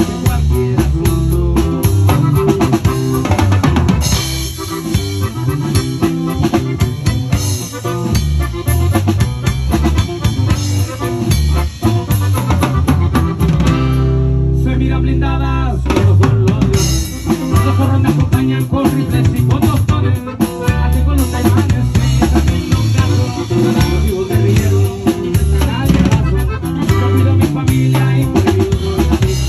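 A corrido band playing: drum kit with snare and rimshot strokes over electric guitars and bass, in a steady beat. About halfway through, the drums stop for a couple of seconds under a held chord, then the beat comes back.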